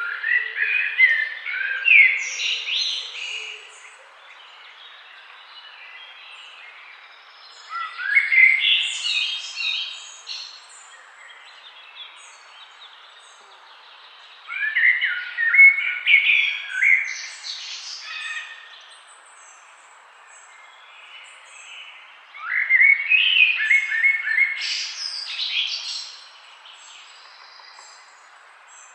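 Songbird singing in four separate phrases, each a fast run of varied high notes lasting about three seconds, with pauses of four to five seconds between them, over a faint steady background hiss.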